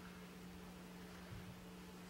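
Quiet room tone: a steady low electrical hum over a faint hiss.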